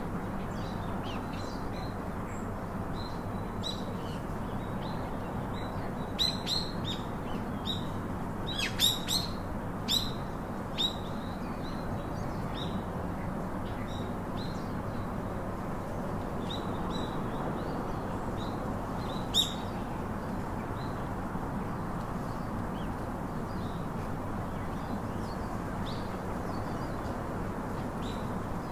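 Small birds chirping in short, high calls, busiest from about six to eleven seconds in with one more near the twenty-second mark, over a steady low background hum.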